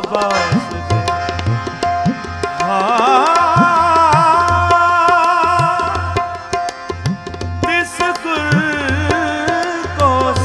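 Sikh Gurbani kirtan: a man's voice sings a long, wavering melodic line over sustained harmonium notes and tabla, whose bass drum strokes slide upward in pitch.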